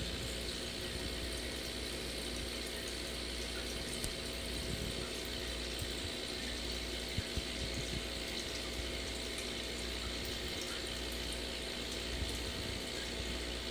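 Aquarium air bubbler: a steady stream of bubbles rising and breaking at the water surface, with a low steady hum underneath and a few faint clicks.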